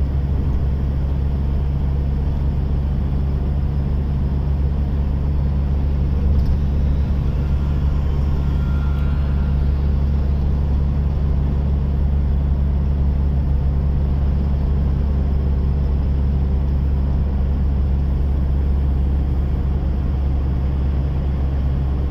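Steady low drone of a car on the move, heard from inside the cabin.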